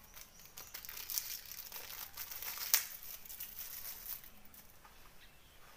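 Plastic packaging crinkling and tearing as a button-cell battery is unwrapped by hand, with one sharp click about two and a half seconds in.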